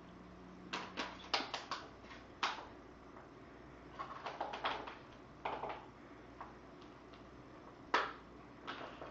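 Light, sharp clicks and taps in irregular clusters, the loudest one near the end, over a faint steady low hum.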